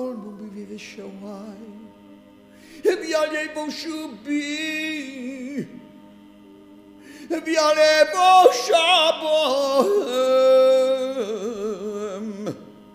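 Solo male cantor chanting a Hebrew prayer, unaccompanied: long melismatic phrases with a wide vibrato. There are two main phrases, the second louder and longer, separated by a short pause about halfway through.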